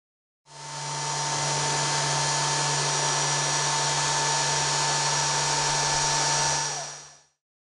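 Router spindle on a homemade CNC machine running at speed while engraving lettering into plywood: a steady whine over a low hum. It fades in about half a second in, and near the end fades out as the whine drops slightly in pitch.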